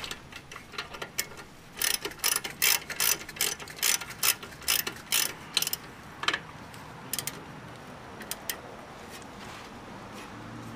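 Ratchet wrench clicking as it tightens the lower slide bolt on a 2007 Chevy Suburban's new rear brake caliper. A quick, even run of clicks at about three a second, then a few scattered clicks before it stops.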